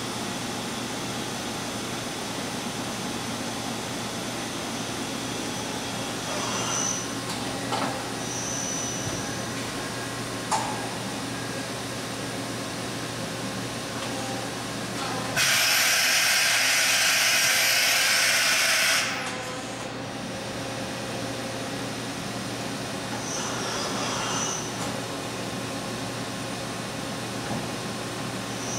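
1986 Kuraki KV-1000 vertical machining center running a program: a steady machine hum, with a few short high whines and clicks. About halfway through, a loud hiss lasts for about three and a half seconds and then cuts off.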